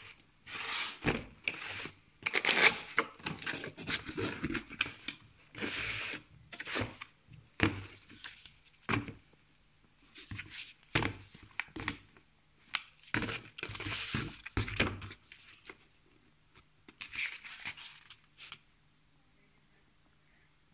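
Packaging being opened and handled during an unboxing: irregular tearing and rustling of cardboard and wrapping, with sharp knocks and clunks, stopping about eighteen seconds in.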